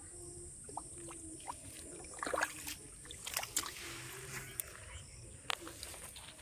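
Light water splashes and small knocks, a few scattered over a few seconds, over a steady high hiss.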